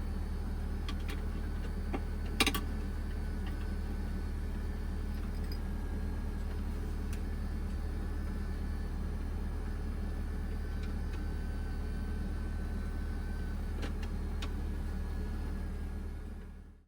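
Steady low mechanical hum of a running machine, with a few faint clicks and one sharp click about two and a half seconds in; the hum fades out just before the end.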